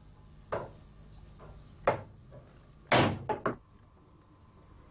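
Sharp metallic clacks of a hand-lever bench shear cutting metal: single strokes about half a second and two seconds in, then a louder group of three about three seconds in.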